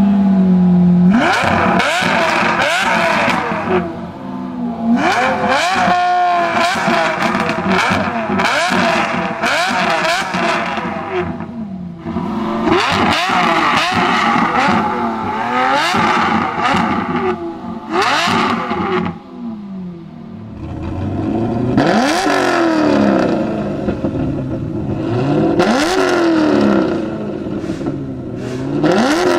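Lamborghini Murcielago V12 with a straight-pipe exhaust, revved over and over while parked: quick rising and falling blips with short returns to idle. About twenty seconds in, a Hennessey-tuned Chevrolet Camaro SS V8 takes over, revving in slower, deeper swells.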